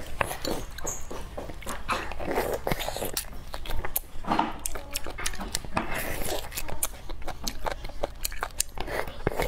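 Close-miked eating of braised beef bone marrow: wet chewing and mouth smacks, with frequent small clicks of a metal spoon against the bone.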